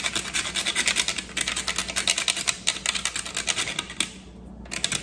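A cinnamon stick rasped quickly back and forth across a fine stainless steel rasp grater, many short scraping strokes a second, with a brief pause about four seconds in.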